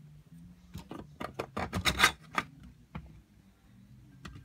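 Quick run of sharp plastic clicks and knocks as 3D-printed PLA robot parts are handled and fitted back together. Most of the clicks fall in the first half, with a faint steady low hum underneath.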